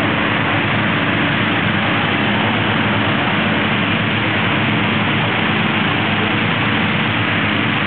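Gas-engine inflator fans running steadily, a constant engine drone under rushing air, as hot-air balloon envelopes are cold-inflated on the ground.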